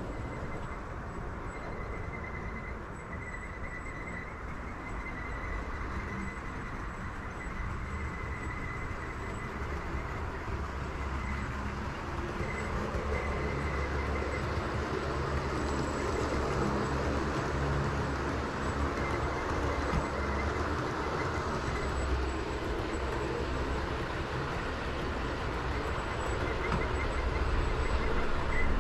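A train running along the track: a steady rumble that grows louder over the second half.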